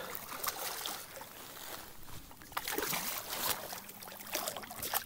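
A hooked smallmouth bass thrashing and splashing at the surface beside a kayak, in a run of irregular splashes.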